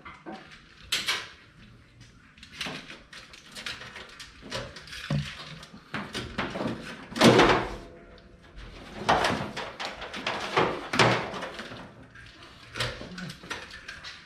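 Irregular knocks, clunks and scraping of hands-on work, the loudest clunk about seven seconds in.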